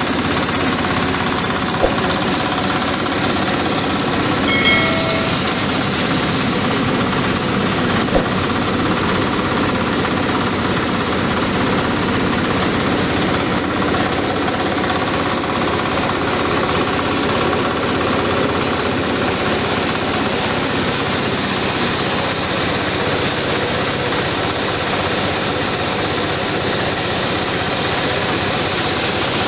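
Dry-coffee huller machine running with a loud, steady mechanical noise, with a few brief knocks in the first eight seconds.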